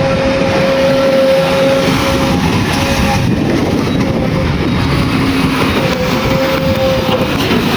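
JCB 3DX backhoe loader's diesel engine running loudly and steadily, with a steady whine over the low rumble that drops out briefly a couple of times.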